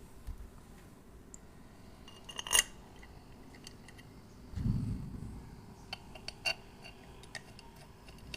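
Small metal parts and tools clinking and knocking as they are handled and set down, with the sharpest clink about two and a half seconds in, a dull low knock around the middle and a few lighter clicks after it.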